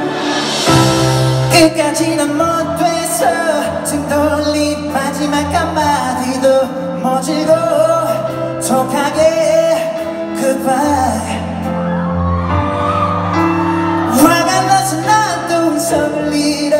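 Live performance of a slow R&B pop ballad: a male voice singing over a backing track of sustained bass and keyboard chords, recorded from the audience in a large hall. A burst of crowd cheering about a second in.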